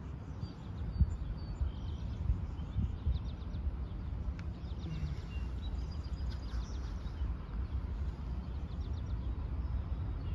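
Small birds chirping in short quick runs, twice, over a steady low rumble.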